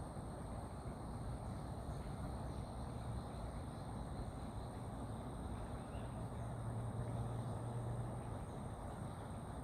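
Outdoor ambience: a steady low rumble that swells a little in the second half, a constant thin high-pitched tone, and a faint bird chirp about six seconds in.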